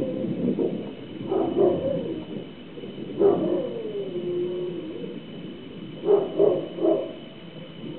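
A dog barking in short bursts, with one drawn-out falling cry about three seconds in and three quick barks near the end.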